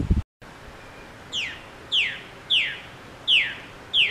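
A songbird singing the same sharp, downward-sliding whistled note five times in under three seconds.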